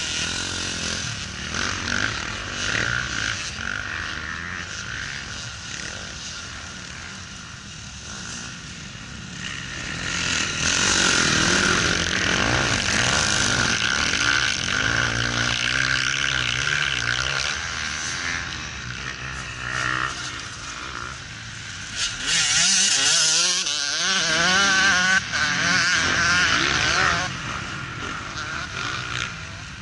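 Motocross dirt bikes riding the track, their engines revving up and down through the corners. The sound grows loudest as riders pass close by, about a third of the way in and again late on.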